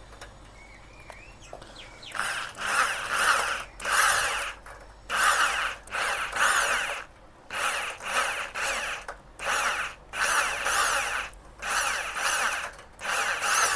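Handheld electric drill run in repeated short bursts of about a second each, after a quieter first two seconds, its motor speed rising and falling. It is spinning a thin wire through the clogged holes of a motorcycle fuel pump to clear the dirt.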